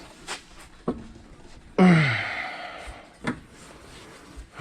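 A man's strained grunt of effort, falling in pitch, about two seconds in, between a few sharp knocks of tools against the car's suspension parts.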